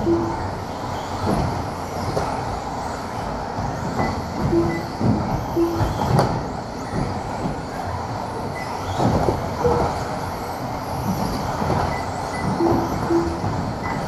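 Several two-wheel-drive RC buggies racing on a carpet track: a continuous, busy mix of motor and tyre noise with clattering knocks from landings and hits, and short beeps now and then.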